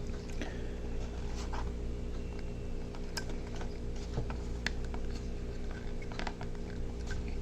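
Scattered faint clicks and taps of small parts of a diecast toy bus being handled and fitted, over a steady low electrical hum.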